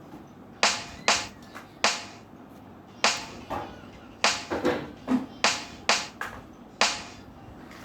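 A series of about a dozen sharp impact sounds at an uneven pace, each dying away quickly.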